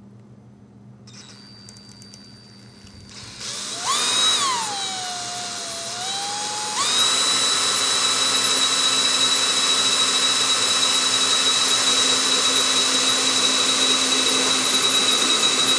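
Cordless drill driving a 13/64-inch bit straight down through a wooden model-airplane wing to make a bolt pilot hole. The motor whine starts about three seconds in, climbs, then drops to a lower speed for a couple of seconds before running steadily at a higher speed from about seven seconds in.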